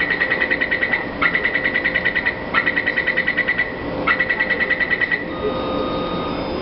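Taipei Metro C341 train's door-closing warning buzzer: four bursts of rapid, even beeps, about ten a second, each lasting about a second. The beeps stop about five seconds in, signalling that the doors are about to shut.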